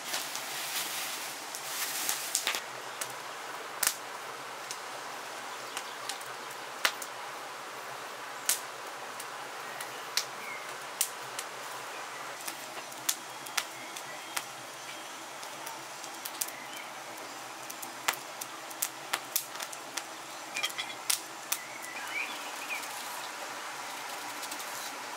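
Scattered sharp clicks and knocks of a knife and dishes on a wooden table as food is set out and cut by hand, over a steady outdoor hiss with a few faint bird chirps.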